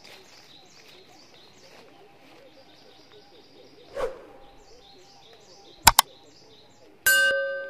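Small birds chirp with repeated short high notes over a dry leaf rustle. Near the end come two sharp mouse-click sound effects and then a loud bell ding that rings away, from a subscribe-button overlay.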